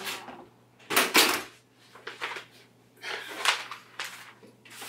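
A hotel room door shutting with a thud about a second in, followed by paper takeout bags rustling and being handled.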